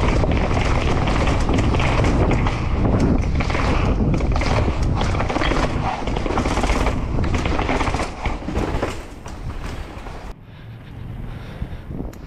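Mountain bike clattering over rough ground at speed, with wind buffeting the microphone; the noise eases about eight seconds in and is much quieter over the last two seconds.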